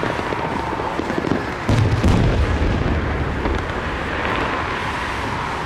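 Fireworks display: aerial shells bursting in a continuous rumble of booms, with the loudest pair of booms about two seconds in.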